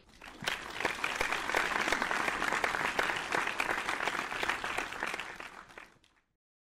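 A crowd applauding: many hands clapping, which builds up within the first second and dies away about six seconds in.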